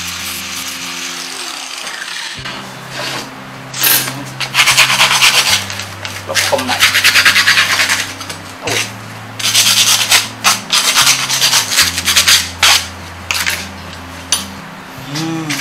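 An angle grinder grinding a steel jigsaw blade clamped in a vise, stopping about two seconds in. Then sandpaper is rubbed by hand over the blade in repeated rasping strokes of a second or two each.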